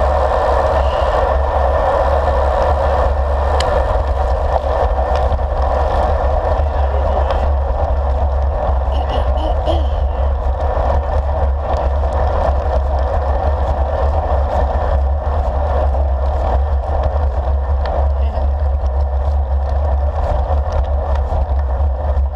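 Steady wind rush and tyre noise from a road bike rolling on asphalt, heard through a handlebar-mounted action camera, with occasional small clicks and rattles.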